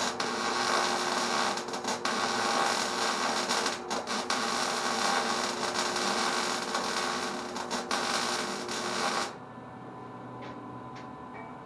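Electric arc welding: the arc runs with a steady crackling buzz for about nine seconds, then stops. A quieter hum with a few faint clicks follows, and the arc strikes again near the end.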